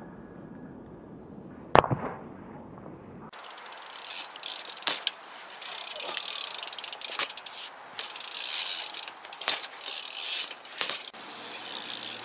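BMX bike being ridden: the rear cassette hub ratchets as it coasts over a hiss of tyres, with several sharp knocks. It starts abruptly a few seconds in, after a single sharp click.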